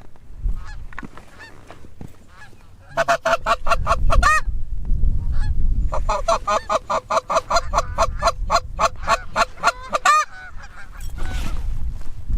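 Canada geese honking in two rapid runs, about six honks a second: a short run about three seconds in and a longer one from about six seconds that stops abruptly near ten seconds. Wind rumbles under it.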